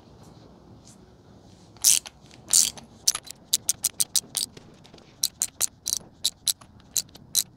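Ratchet wrench clicking in quick runs of sharp ticks as it backs out a motorcycle fork cap, starting about three seconds in after a couple of single clicks.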